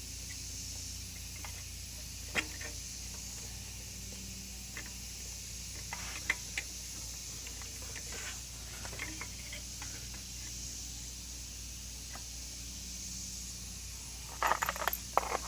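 Scattered light clicks and taps of air filter assembly parts being handled and fitted against a Honda GCV160 engine, over a steady low hum, with a quick run of clicks near the end.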